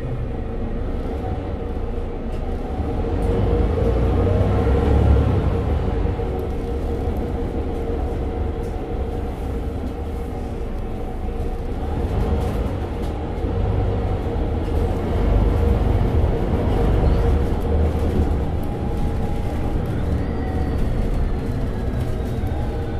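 Mercedes-Benz Citaro 2G articulated city bus standing with its engine running: a steady low rumble with a constant whine above it, swelling twice. A faint rising whine comes in near the end.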